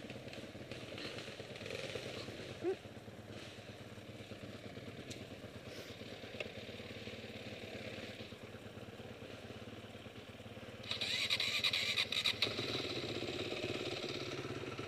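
Honda dirt bike engines running at low revs, then revved up louder and harsher for about a second and a half around eleven seconds in, settling into a stronger steady run.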